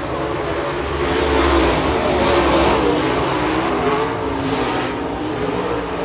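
Dirt late model race cars' V8 engines at racing speed, the pitch rising and falling with the throttle as the cars go through the corners, swelling loudest about two seconds in.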